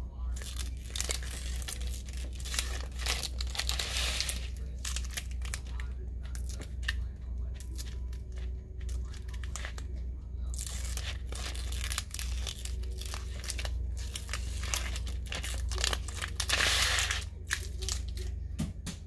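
Excess adhesive vinyl being peeled off the backing sheet of a cut wall decal, lifted with a craft knife, and the peeled scrap vinyl crinkling as it bunches up. It comes in several stretches with small clicks between, the loudest stretch near the end.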